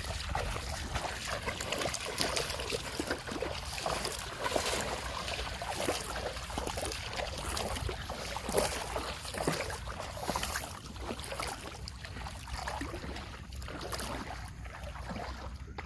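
Water trickling and splashing around a small boat on a river, with many small irregular splashes and drips.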